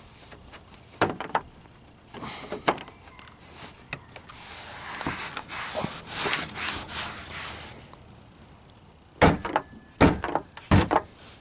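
Car door handle parts clicking and scraping inside the door of a 1994 Geo Prizm as a replacement exterior handle is worked into place, then a quick run of loud sharp knocks near the end.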